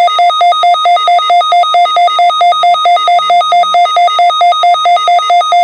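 Midland WR-120 weather radio's electronic alert alarm, a loud warble that alternates rapidly between a low and a high beep, about five times a second. It is set off by Weatheradio Canada's Required Weekly Test signal.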